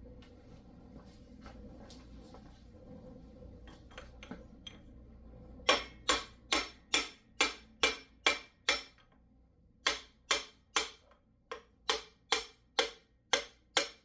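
Repeated hammer blows on a stuck engine part, each a sharp knock about two to three a second. They start about six seconds in and stop briefly near ten seconds before going on.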